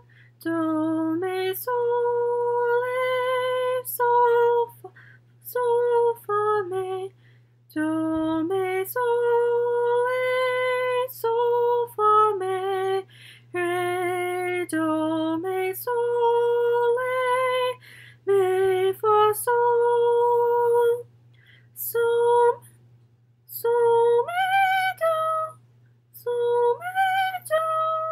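A woman singing unaccompanied solfège syllables, do, mi and sol: short held notes, each about a second long, stepping up and down between a few pitches, with brief pauses between phrases.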